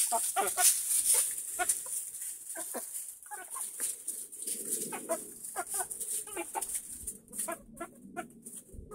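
Small flock of chickens clucking and giving short repeated calls while scratching and pecking through wood shavings, with a low murmur of softer chatter joining about halfway through. A steady high hiss runs behind.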